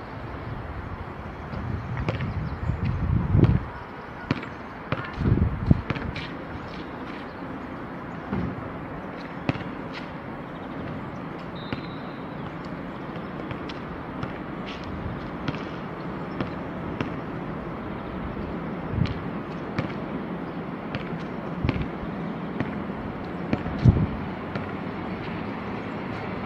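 Outdoor urban ambience: a steady hiss with low rumbling thumps, typical of wind buffeting the microphone, in the first few seconds and again near the end. Faint scattered clicks run throughout.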